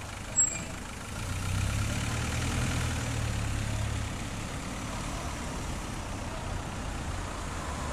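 Vehicle engine idling with a steady low rumble that swells about a second in and eases off again about four seconds in. A brief sharp high-pitched sound comes about half a second in.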